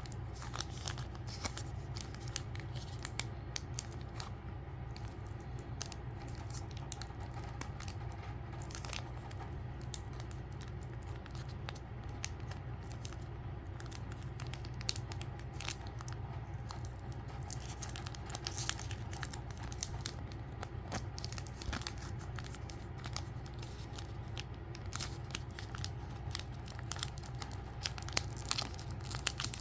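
Photo card pack being torn open by hand: many small crackles and rustles of packaging crinkling and tearing, a pack that is hard to open without a cutter. A steady low hum runs underneath.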